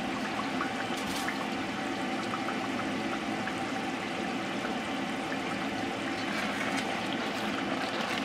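Thick tomato stew simmering in an enamelled cast-iron pot, a steady bubbling with small scattered pops, stirred with a silicone spatula partway through.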